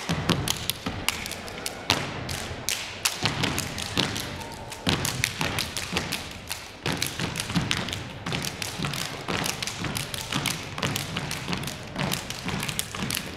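A step team stepping in unison: many sharp stomps on a hardwood gym floor and claps in a fast, driving rhythm, with no music.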